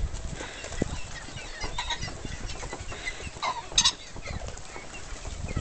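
Pheasants calling in the pens, with a few short squawks about two seconds in and a louder one just before four seconds, over wind rumbling on the microphone.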